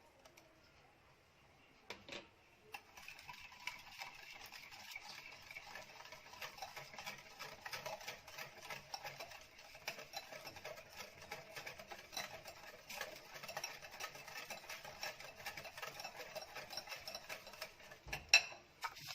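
Electric hand mixer running steadily, beating lemon juice into a batter of eggs, sugar and oil. It starts about three seconds in and stops near the end, just after a sharp knock.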